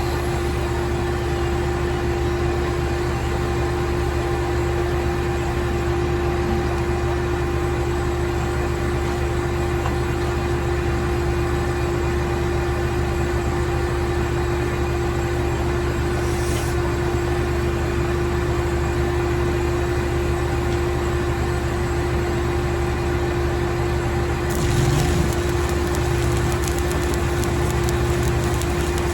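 Stick welding arc crackling steadily as a weld pass is run into the crack of a steel excavator bucket, over a steady engine hum. The crackle gets a little louder and brighter near the end.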